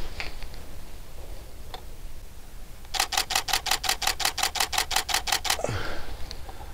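Canon DSLR shutter firing in a rapid continuous burst, about six sharp clicks a second for roughly two and a half seconds, starting about three seconds in.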